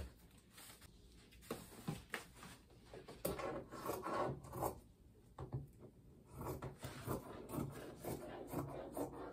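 Fabric rustling and rubbing as it is handled and spread on a table, with scattered light taps and knocks.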